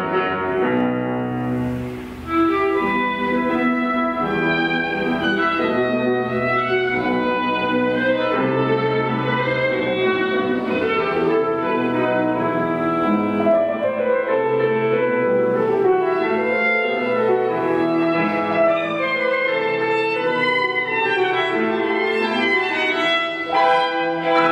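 Classical background music with held notes on bowed strings over piano, briefly dipping about two seconds in.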